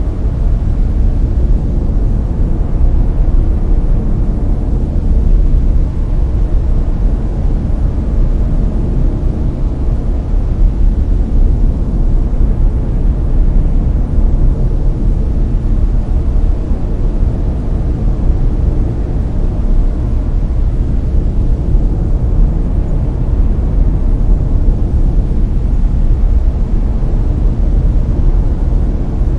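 Brown noise: a steady, deep rumbling hiss, loudest in the low bass and falling away toward the treble, layered with no breaks or changes.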